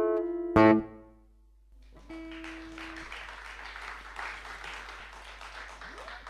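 A last guitar chord is struck and rings out, dying away within a second. After a short pause, an audience applauds.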